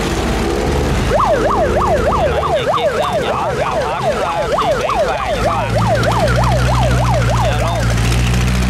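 An electronic siren yelping, its pitch sweeping quickly up and down about three times a second, starting about a second in and stopping near the end. Boat engines run steadily underneath.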